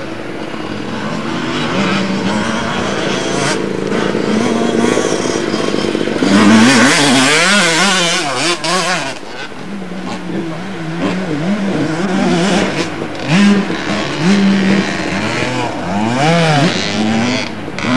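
Motocross motorcycle engines revving up and down over and over as the bikes are ridden round a dirt track, the pitch climbing and dropping with each gear change. Loudest between about six and nine seconds in.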